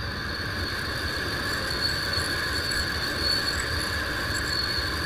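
Steady shrill insect chorus sounding in two high pitches, over a low background rumble.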